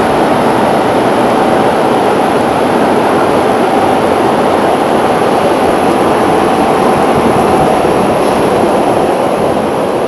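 Industrial flat-glass washing machine running: a loud, steady mechanical noise with a faint steady tone in it, as its rollers carry a glass sheet through.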